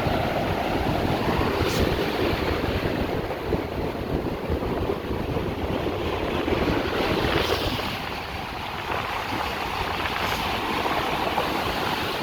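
Ocean surf washing onto the beach, with wind buffeting the microphone and a brief swell of wave noise about seven seconds in.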